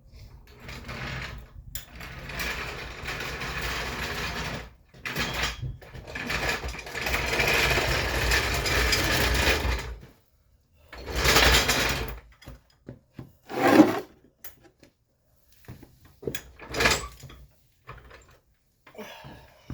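Workshop mechanical noise: a steady rattling run lasting about eight seconds, a shorter run a second later, then a few separate sharp clanks.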